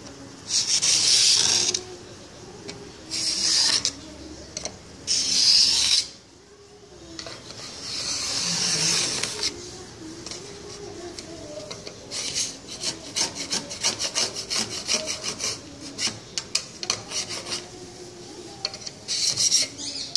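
Hand work on the bottom track and sash of a tilt-and-slide door: several hissing rasps, each a second or two long, then about six seconds of rapid scraping clicks, and another short hiss near the end.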